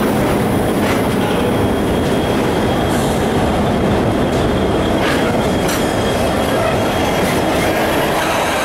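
Rail tank wagons of a rail head treatment train rolling steadily past at close range, with a thin, steady high wheel squeal and a few sharp clicks from the wheels. Near the end the rear Class 66 diesel locomotive draws level.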